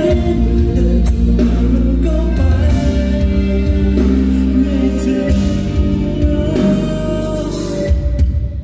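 Live pop song played loud over a concert hall's sound system: heavy bass, sustained keyboard-like notes and a sung male vocal line. The music falls away sharply right at the end.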